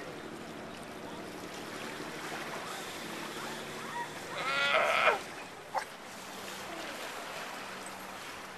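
A California sea lion giving one loud, bleating call, just under a second long, about halfway through, over a steady low hum.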